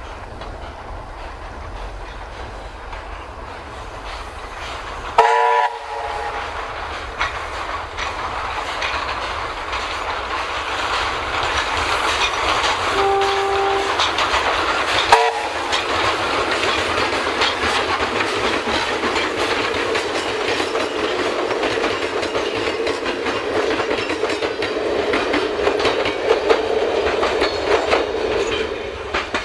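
Steam locomotive hauling a passenger train, its running noise swelling steadily as it approaches and passes. Its whistle gives a short toot about five seconds in and another about fifteen seconds in.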